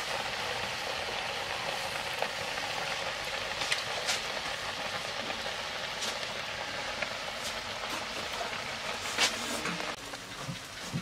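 Nettle curry bubbling hard in a pot over a wood fire: a steady sizzling hiss with a few sharp crackles. It eases slightly near the end.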